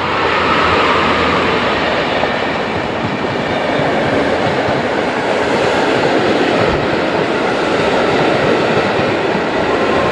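Electric-locomotive-hauled passenger train passing close by: the locomotive goes past at the start, then the coaches roll by with a steady, loud rolling noise of wheels on rail.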